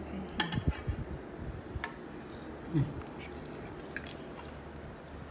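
Eating at the table: a few light clicks and knocks of a fork against a plastic fruit container and plate, most of them in the first second, with quiet chewing and a short murmured voice sound about three seconds in.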